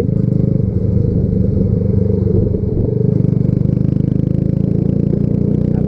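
Yamaha Factor 150's single-cylinder four-stroke engine running while the motorcycle is ridden, a steady engine note that takes on an even pulsing from about three seconds in.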